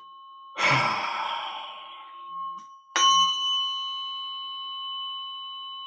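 A long breath, then a therapeutic tuning fork struck about three seconds in, ringing on with a clear, steady high tone that slowly fades.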